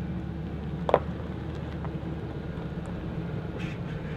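Ford Expedition's V8 engine running at idle as the SUV backs up slowly, with one sharp knock about a second in.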